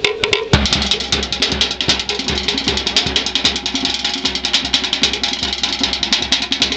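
Fast drumming: rapid, even strokes, with a deeper beat joining about half a second in.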